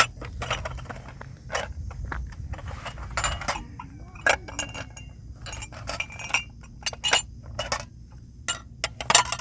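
Irregular sharp clinks and knocks, a dozen or so spread unevenly, over a steady low hum.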